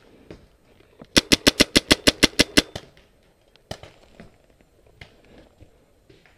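Paintball marker firing a rapid string of about a dozen sharp pops, roughly eight a second, for about a second and a half. One more single sharp pop follows about a second later.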